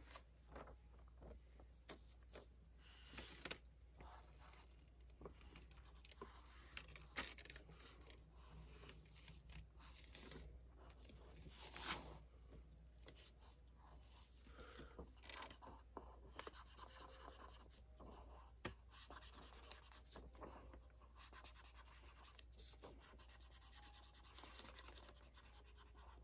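Faint scratching and rubbing of a marker colouring in on paper, in short irregular strokes with a few small ticks.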